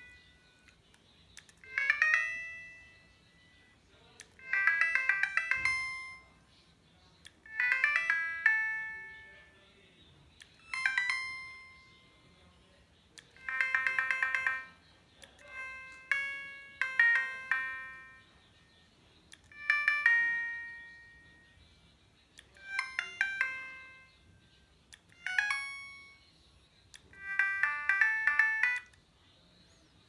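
Siemens S55 mobile phone playing a run of its built-in tones: about ten short electronic jingles, each about a second long, separated by brief pauses.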